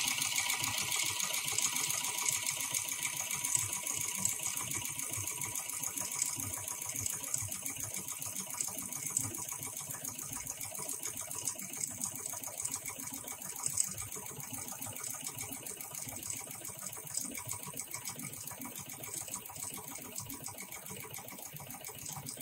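Bobbin winder of a HighTex 71008S heavy-duty pattern sewing machine spinning, winding bottom thread onto the bobbin: a steady high-pitched whir with a faint steady tone, slowly growing quieter.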